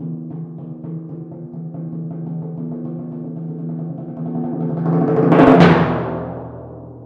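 Four timpani struck with mallets: a rapid run of strokes swells in a crescendo to a loud climax about five and a half seconds in, after which the drums ring on and die away.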